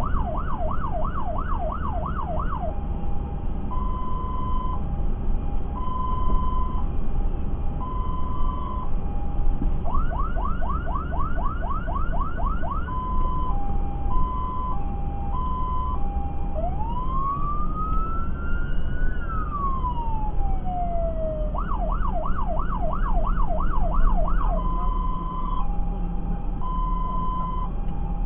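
Fire engine's electronic siren on an emergency run, switching between a fast yelp, a high-low two-tone, and one slow wail that rises and falls. Underneath runs a steady low rumble of the truck's engine and tyres, heard from inside the cab.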